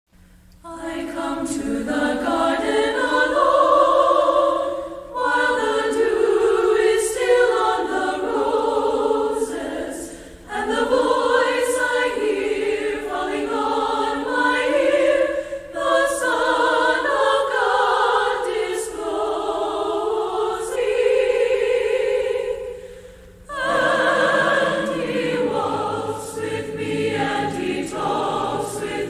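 A choir singing a hymn in long phrases, each breaking off briefly before the next, over a held low note that drops out about three-quarters of the way through.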